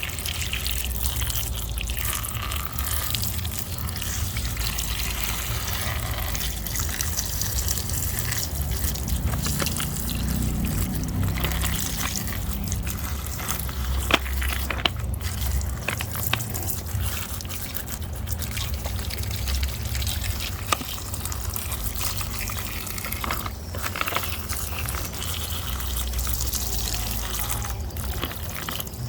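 Water running and trickling steadily while muddy toys are rinsed clean, with a few sharp clicks about halfway through.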